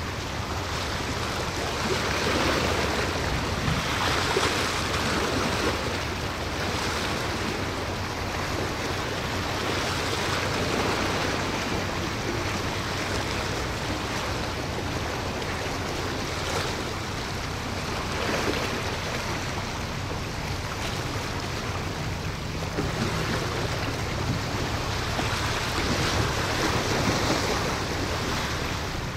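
Waves washing and wind on the microphone, swelling every few seconds, over a faint low steady drone of a vessel's engine.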